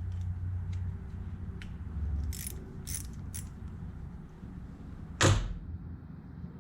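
Small metal clicks and clinks of hand tools working on a small-engine carburetor as its float bowl is being removed, with one loud knock about five seconds in.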